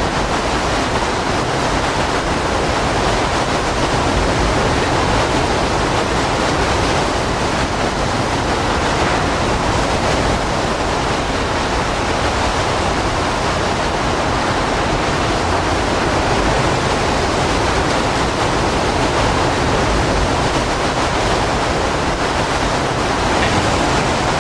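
Steady roar of hurricane-force wind and driving rain.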